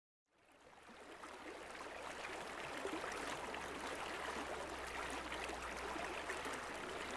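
Small creek flowing, a steady rush of water that fades in from silence over the first couple of seconds.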